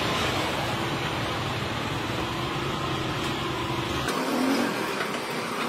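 Steady motor-vehicle engine and street noise, with a low hum that cuts off about four seconds in.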